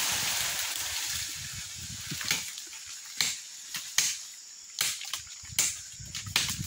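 Machete chopping into wood, about six sharp strikes spaced under a second apart starting about two seconds in, with rustling of dry leaves and brush before them.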